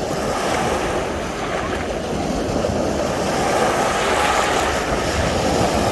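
Sea waves washing onto a beach in a steady surge, with wind rumbling on the microphone.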